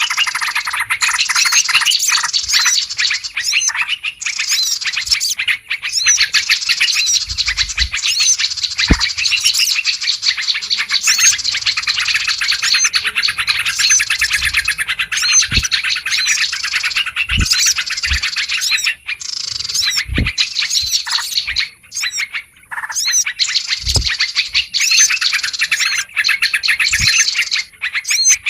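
Bird-lure recording of a noisy mixed flock: sooty-headed bulbuls (trucukan) and many small birds chirping and twittering at once, densely overlapping. A few short low thumps are heard along the way.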